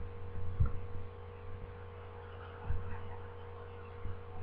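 Steady low electrical hum with a fainter higher tone above it, broken by three dull low thumps, the loudest about half a second in.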